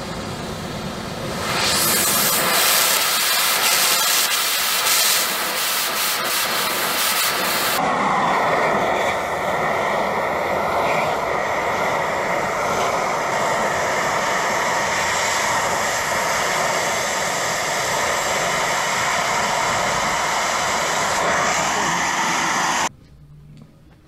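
Oxy-fuel cutting torch on a roller-wheel guide cutting through a rusted steel wheel: a loud, steady hiss of the cutting flame. The hiss shifts in character about eight seconds in and cuts off abruptly near the end.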